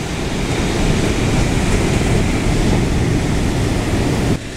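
Steady rumble of wind buffeting the microphone, mixed with the wash of ocean surf. It stops abruptly near the end.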